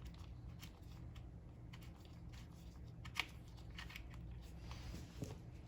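Faint light clicks and scrapes of a small bolt being unthreaded by hand from a plastic engine part, with one sharper click about three seconds in, over a low steady hum.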